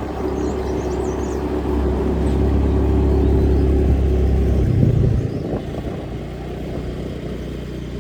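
A vehicle engine running with road rumble while driving, easing off and getting quieter about five seconds in.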